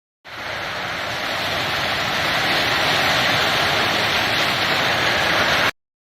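A steady rushing hiss, like air or spray under pressure, that starts abruptly, swells slightly and cuts off suddenly after about five and a half seconds.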